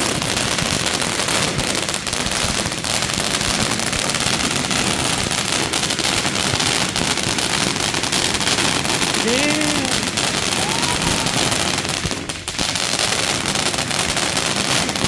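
Consumer firework crackling: a dense, continuous stream of rapid snaps that dips briefly about twelve seconds in.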